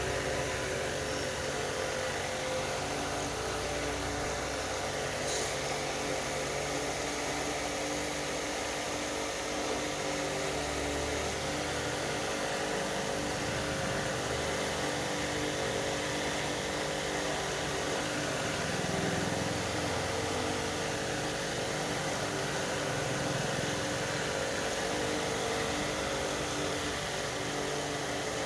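Steady mechanical hum with several held tones over a haze of background noise, picked up by a phone's microphone.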